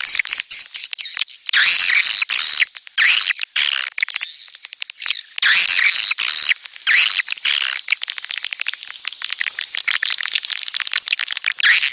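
Edible-nest swiftlet calls: a dense, high twittering chatter in repeated bursts, with runs of rapid clicking between them. This is the breeding ('birahi') call played as a lure sound in swiftlet farming.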